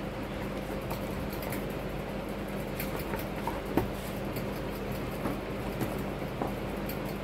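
Plastic thread spools clicking and knocking lightly as they are picked out and sorted in a plastic compartment box, over a steady machine hum.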